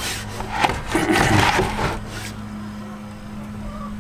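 Rustling and knocking against a wooden chicken nesting box for about two seconds, then only a steady low hum.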